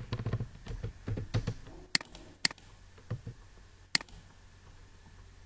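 Computer mouse clicking: three sharp clicks, two about half a second apart some two seconds in and a third about four seconds in.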